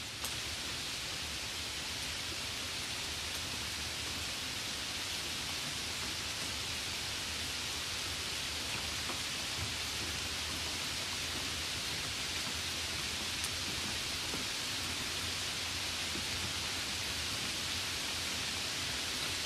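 Steady, even rain-like hiss of wet snow falling and pattering on surfaces, with a brief click right at the start.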